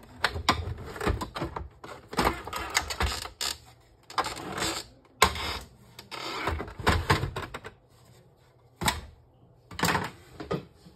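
Plastic parts of an inkjet printer being handled: irregular clicks, knocks and short scraping rattles as the scanner unit is lowered shut and the printer is moved about.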